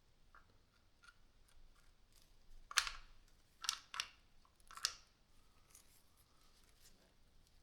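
A few sharp clicks and clacks of small parts and tools being handled while a hammer drill is taken apart, the loudest about three seconds in, with three more over the next two seconds.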